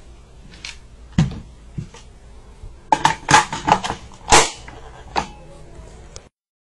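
Sharp metallic clicks and knocks from a gold-plated AK-pattern rifle and its magazine being handled: a few single knocks, then a quick cluster about three seconds in and the loudest knock just after four seconds. The sound cuts off abruptly near the end.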